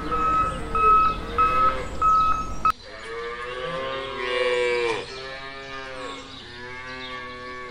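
Cattle mooing in long, drawn-out calls. For the first few seconds a high beep repeats about twice a second over a low rumble and cuts off suddenly, followed by two long moos.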